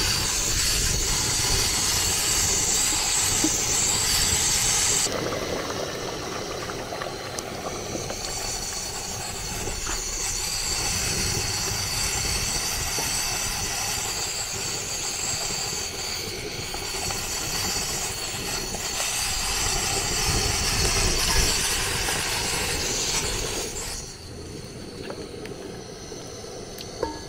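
Palm oil sizzling in an aluminium pot, a steady hiss, as egusi paste is spooned into it. The sizzle drops noticeably quieter near the end.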